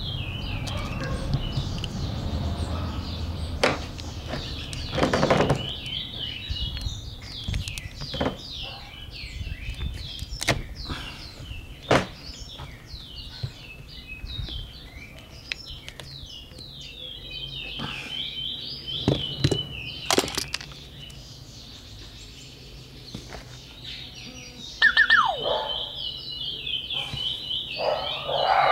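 Small birds chirping over and over. Against it are scraping and scattered sharp knocks from a block of bar soap, used as a pellet target, being cut and pried open with a pocketknife.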